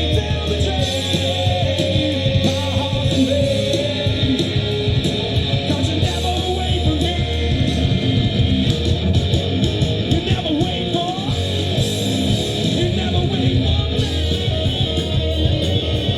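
Live rock band playing, led by guitar, with the music steady and loud throughout.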